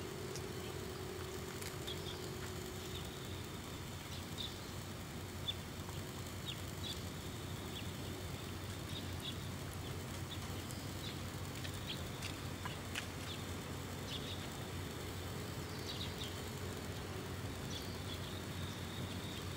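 Steady outdoor background noise with faint, short high-pitched chirps scattered irregularly, about one a second.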